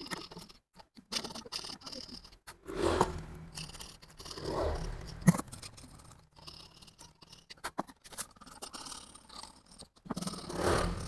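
Irregular scrapes and knocks of a finned cast-metal water pump motor housing being handled and turned over on a wooden workbench, with a sharp knock about five seconds in and a few light clicks later.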